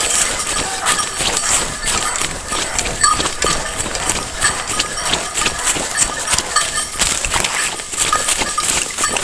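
Someone walking fast through dry, dead bracken and brush: dense, continuous crackling and rustling of dead fern stems, with irregular footfalls.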